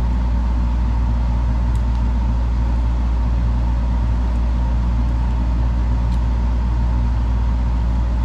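Steady low hum, even in level throughout, with two faint ticks about two and six seconds in from needle-nose pliers working stainless steel spinner wire.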